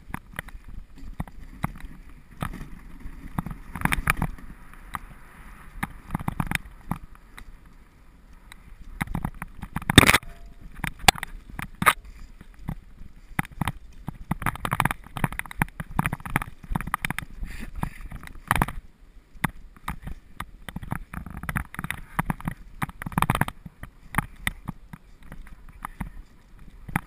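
Wooden sled sliding over a snowy trail behind two huskies: a continuous scraping hiss of the runners on snow, with many irregular clicks, knocks and rattles, the sharpest knock about ten seconds in.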